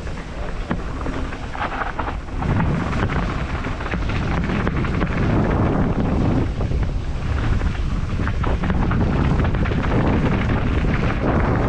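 Wind buffeting the microphone over the rattle and rumble of a mountain bike descending a rough dirt-and-rock trail, with many small clicks and knocks from the bike. It grows louder about two and a half seconds in.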